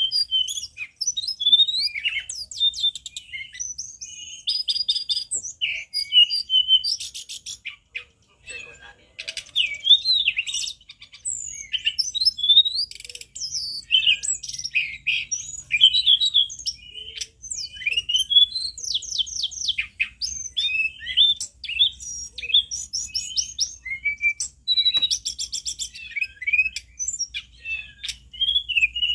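A caged hill blue flycatcher (tledekan gunung) singing loudly. It gives a long, varied run of quick whistled notes that slide up and down, broken by fast trills, with a short pause about eight seconds in.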